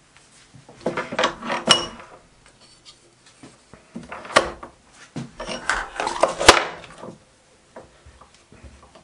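Metal clinks and clunks from setting up work on a stopped lathe: a brass disc is fitted against a copper ring in the chuck and the tailstock centre is slid up to hold it. The knocks come in two bunches, about a second in and again from about four to seven seconds in.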